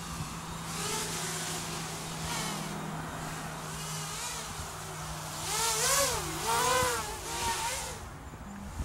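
FPV racing quadcopter's electric motors and propellers whining, the buzz sliding up and down in pitch as the throttle changes, loudest about six seconds in.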